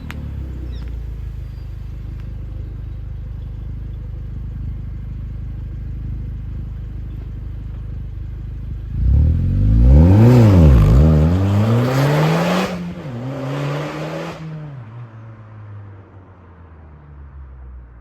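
Audi S3 8P's turbocharged 2.0 TFSI four-cylinder running steadily. About nine seconds in it revs up, drops and revs again, with a loud rushing hiss from the open intake and blow-off valve. The hiss cuts off suddenly as the revs fall back, and the engine settles and fades.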